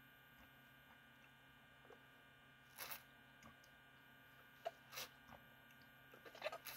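Mostly near silence with a steady low electrical hum. A few short, soft sounds of drinking from a plastic bottle, sips, swallows and handling, come about three seconds in, again about five seconds in, and in a small cluster near the end.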